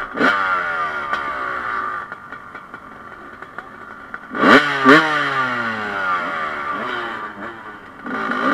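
Dirt bike engine revved in sharp blips: one at the start, two quick loud ones about four and a half seconds in, and another near the end. Between the blips the pitch falls away as the revs drop.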